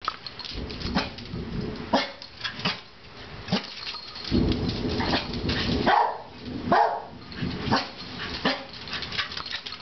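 Small dogs, a corgi and a miniature dachshund, barking repeatedly at a thunderstorm, a short bark about every second, over bursts of low rumbling.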